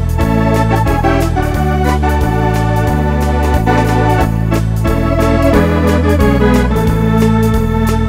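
Wersi electronic organ playing a step fox medley: a melody over held chords, a bass line stepping from note to note, and a steady drum-machine beat.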